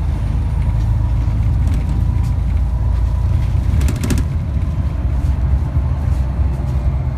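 Steady low rumble of a city bus's engine and road noise, heard from inside the cabin, with a short run of clicks about four seconds in.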